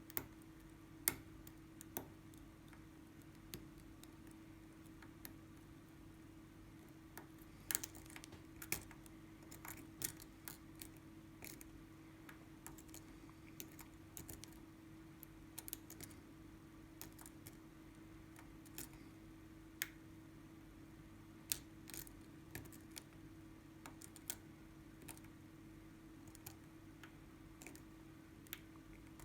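Faint, irregular clicks and taps of a lock pick and tension tool working the pins of an Assa Twin 6000 high-security lock, over a steady hum.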